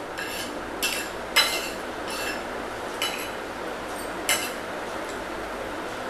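Metal spoon and fork clinking against ceramic plates and bowls while eating noodles: about six separate, irregularly spaced clinks, the loudest about a second and a half in and again near the end.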